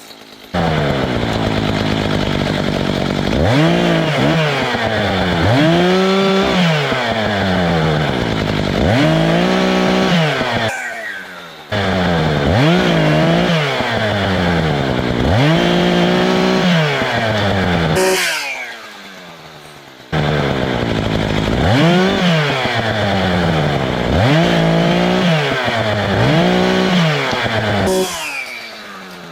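Gas chainsaw running at high revs and cutting, its engine pitch dipping under load and climbing again several times. It comes in three stretches that each start abruptly and die away.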